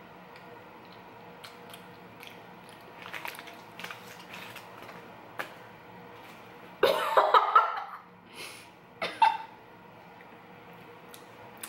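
A woman coughs and gags on a bite of halva that she is rejecting, loudest about seven seconds in and again briefly near nine seconds. Softer crinkling of a paper wrapper comes before.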